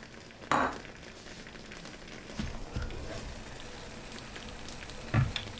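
Thick sarson da saag (mustard-greens purée) bubbling and sputtering in a covered frying pan, a steady crackle like light rain. There is a sharp clink about half a second in, and a few dull knocks around the middle as the glass lid is handled and lifted off.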